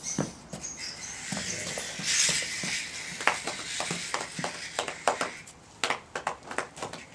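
Puppies scampering on a paved driveway: a scatter of light taps and scuffs, with a brief rushing noise about two seconds in.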